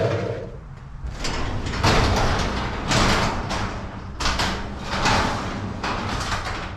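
A door sliding or rolling along its track in several surges, over a steady low hum.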